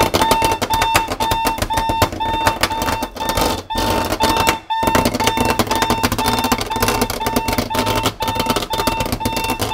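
Sonic Bomb alarm clock's alarm going off: a loud, high beep repeating about two to three times a second, over the buzz and rattle of its 12-volt bed shaker vibrating on a hard countertop. The rattle briefly drops out twice about four seconds in.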